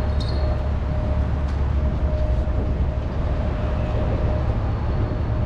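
Steady low rumble of road traffic on the bridge overhead, with a faint steady hum above it.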